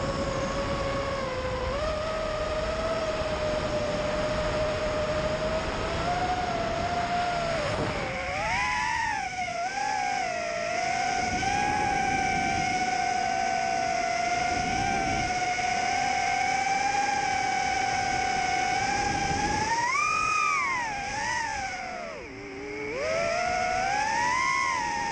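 FPV quadcopter's brushless motors and propellers whining in flight, the pitch holding fairly steady and then swooping up and down with the throttle. There is a sharp rise and fall about twenty seconds in and another rise near the end.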